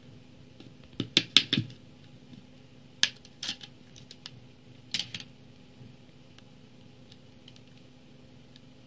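Plastic snap clips of an e-reader's front bezel popping loose as it is pried off: a quick run of sharp clicks about a second in, then a few single clicks over the next four seconds.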